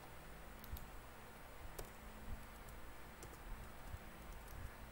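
A few scattered, irregular clicks of computer keys being typed, over a low steady hum.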